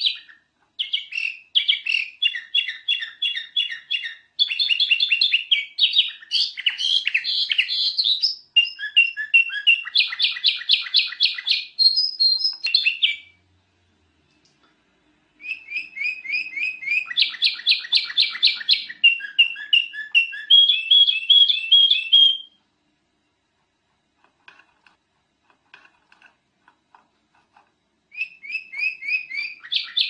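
Kutilang emas bulbul singing: runs of quick, repeated, high chattering and warbling notes, each run lasting several seconds. There is a short pause about halfway through and a longer pause with only a few faint notes near the end, before the song starts again.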